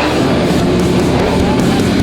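Loud heavy rock music with distorted electric guitar, kicking in hard just before this point and playing on.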